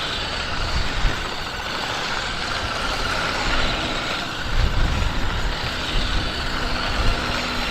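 Remote-control 1/10 scale toy cars running on pavement: a steady whir of their small electric motors and tyre noise, with a brief low rumble about halfway through.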